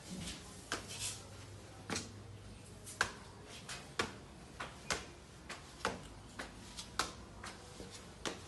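Footsteps climbing bare cement stairs: sharp, short steps about twice a second.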